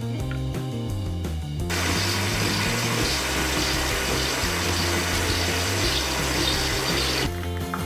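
Nespresso Lattissima One coffee machine's pump running for about five seconds, a hissing buzz that starts and stops abruptly as the machine dispenses, over background music.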